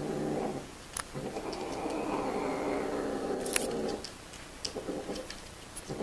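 A cat yowling while mating, in long drawn-out calls: one trails off just after the start, then another is held for about three seconds. A couple of sharp clicks are heard during the call.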